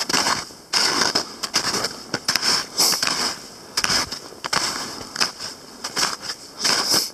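Footsteps crunching through snow at a walking pace, a string of uneven crisp crunches.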